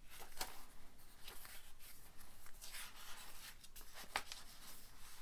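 Paper rustling and brushing as the pages of a handmade paper journal are turned and a piece of teal card is handled, with a few soft taps between the rustles.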